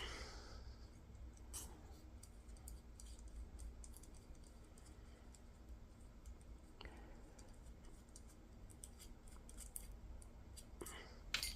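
Faint scattered clicks and scrapes of small metal parts as screws are worked out of a lightsaber hilt with a small wrench, a few sharper clicks near the end, over a low steady hum.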